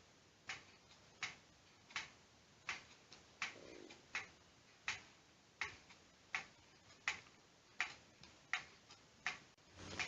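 Faint, even ticking, one click about every three quarters of a second, from the swinging-arm mechanism of a waving lucky-cat figurine (maneki-neko).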